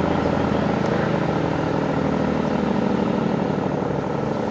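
ACA Superbanshee electromechanical siren sounding a low, steady tone with a fast fluttering texture, growing slightly quieter towards the end.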